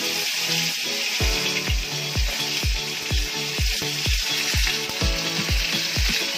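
Fish fillet sizzling as it fries in hot oil in a pan. Background music with a steady bass-drum beat, about two beats a second, comes in about a second in.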